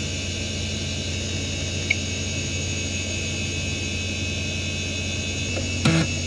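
Samsung Voyager 6 SV0844A hard drive spinning steadily: a low hum with the high whine of its spindle bearings over it. One faint tick comes about two seconds in, and a short burst of clicks near the end.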